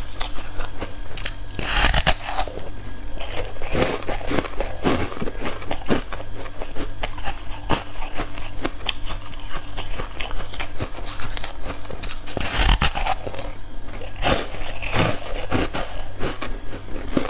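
Foam ice being bitten and chewed close to the microphone: dense, irregular crackling crunches throughout. There are two louder crunching bites, about two seconds in and again near thirteen seconds.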